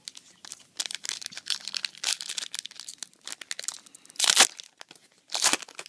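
Foil Yu-Gi-Oh booster pack wrapper crinkling and crackling in the hands, then two louder rips about four and five and a half seconds in as the pack is torn open.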